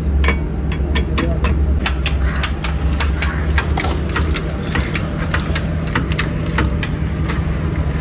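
Irregular sharp metallic clicks and clanks, a few a second, from wheel-changing tools: a four-way lug wrench on the wheel nuts and a hydraulic floor jack being set and worked under the car. A steady low hum runs underneath.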